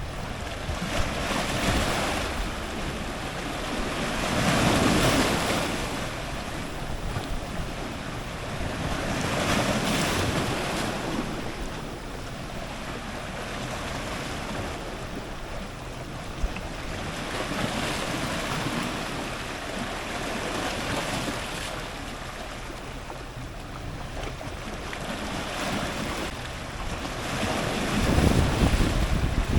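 Strong ocean surf breaking close to the waterline, swelling and washing back every few seconds, with the biggest surge near the end. A low rumble of wind on the microphone sits underneath.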